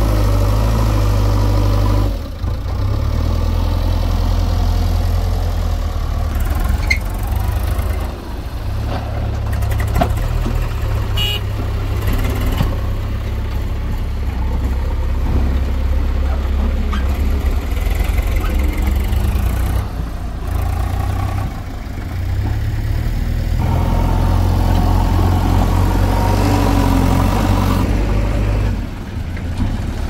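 Heavy diesel machinery engines running hard at work, a backhoe loader and tractor, with the engine note rising and easing off several times. A couple of short knocks come about a third of the way in.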